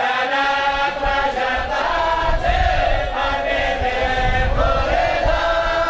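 A group of men chanting together in long, drawn-out notes: an Arabic religious chant of the kind sung at a Quranic school's celebration.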